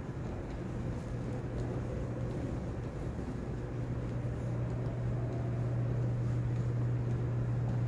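Steady low hum over faint background noise in a large church interior, growing slightly louder toward the end.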